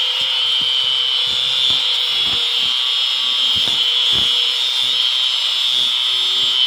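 Electric power tool running steadily with a loud, high-pitched whine and hiss, with a few faint knocks underneath.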